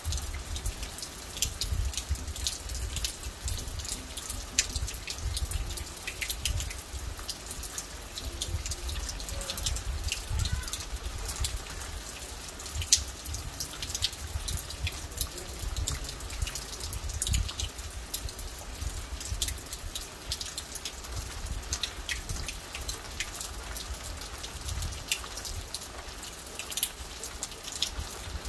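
Rain falling on a car's roof: many separate raindrop hits tapping on the wet metal over a steady rain hiss, with a low rumble underneath.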